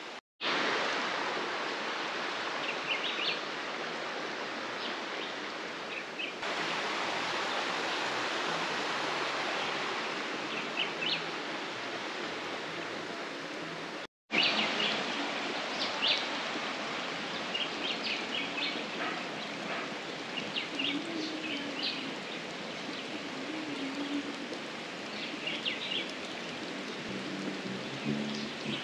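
Countryside ambience: a steady rushing hiss with birds chirping briefly now and then. The sound cuts out for a moment near the start and again about halfway.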